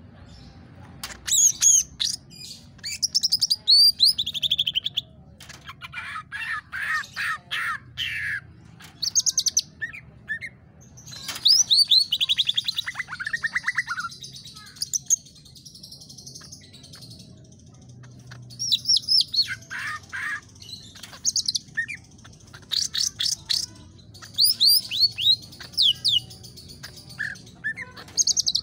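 Green leafbird (cucak ijo) singing in bursts: rapid runs of sweeping whistles and chirps, each a second or two long, with short pauses between.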